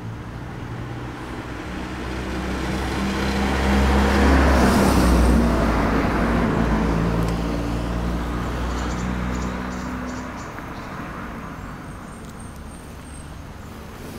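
A motor vehicle passes by. Its engine rumble and tyre noise swell to a peak about five seconds in, then slowly fade.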